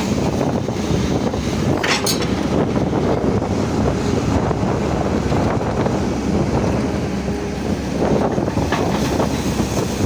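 Wind buffeting the microphone over the steady rumble of an excavator's diesel engine working, with a single short click about two seconds in.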